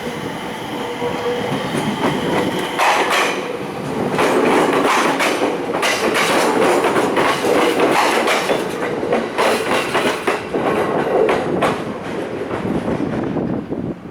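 Container freight train rolling past close by, its wagon wheels clacking over rail joints in a rapid, irregular stream over a steady rumble, growing louder about four seconds in.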